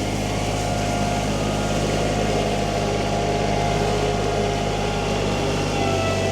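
Kubota tractor diesel engine running steadily, its note shifting to a different pitch near the end.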